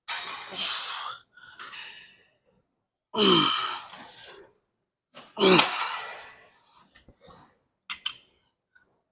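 A man straining through a set: heavy breaths out, then two loud groans about three and five and a half seconds in, each falling in pitch, and a few short sharp clicks near the end.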